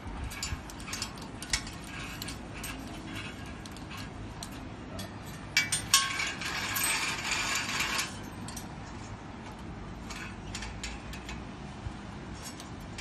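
Clicks and rattles from a stainless-steel balcony clothes-drying rack as its cord is pulled through the mechanism. There is a denser, continuous rasping rattle lasting about two seconds from around six seconds in.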